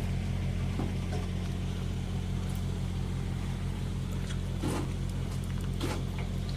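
A vehicle engine running steadily at low revs, a constant low drone with a regular pulse. A few faint clicks sound over it.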